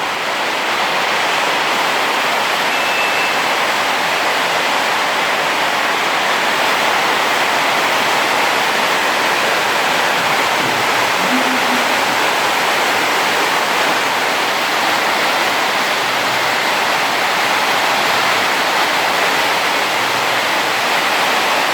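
Heavy rain falling steadily: a dense, even hiss without let-up.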